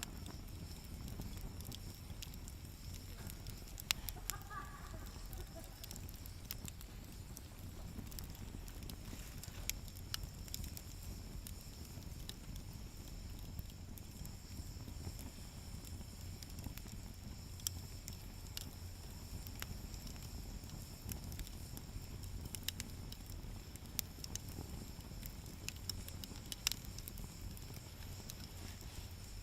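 Wood fire burning in a camping fire stand, with a steady low rumble and scattered irregular crackles and pops.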